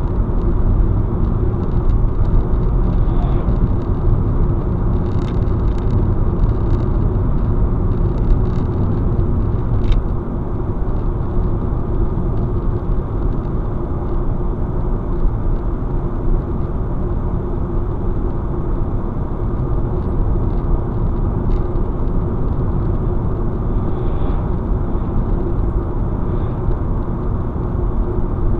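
Steady tyre and road noise with a low engine drone, heard from inside a car cruising at highway speed, with a few faint ticks now and then.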